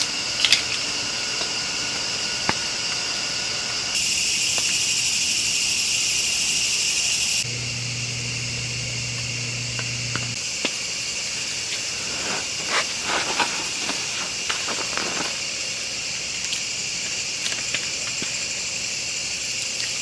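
A steady high hiss of background noise that shifts in level twice, with a low hum for a few seconds and some soft rustling past the middle.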